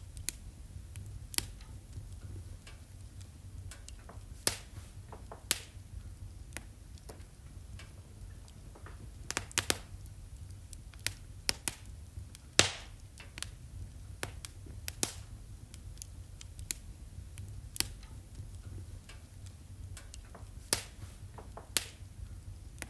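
Fire crackling in a fireplace: irregular sharp pops and snaps over a low steady rumble, with the loudest pop about halfway through.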